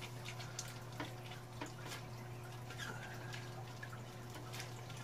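Faint water splashes and drips as a plastic bag is worked at the surface of a small aquarium and lifted out of the water, over a steady low hum.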